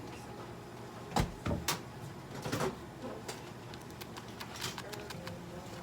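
A few sharp knocks and clatters of small objects being handled and set down, bunched in the first half, then scattered light ticks and taps.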